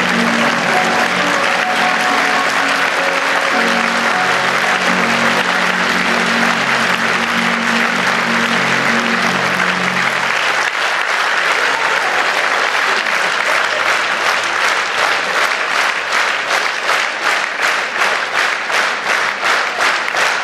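Theatre audience applauding over music. The music ends about ten seconds in, and the applause then turns into rhythmic clapping in unison, about two to three claps a second.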